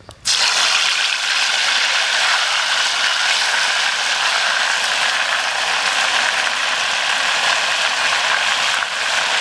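Pork ribs deep-frying in a pot of hot oil: a loud sizzle and crackle that starts suddenly as the meat goes in, then holds steady.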